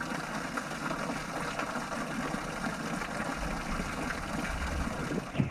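Seawater streaming and splashing down off a rock overhang close to the microphone: a steady wash of falling water full of small drop splashes, with one sharper splash near the end.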